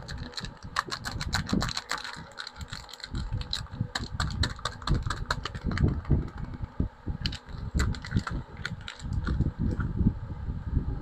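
Hands unpacking a parcel of soaps: irregular crinkling and rustling of the packaging, with many small clicks and soft knocks.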